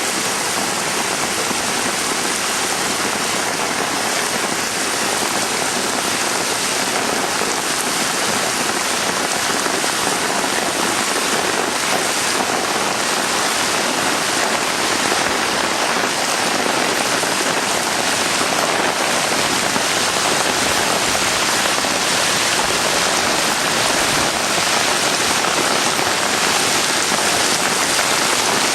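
Torrential rain pouring down steadily, a loud, even hiss of rain.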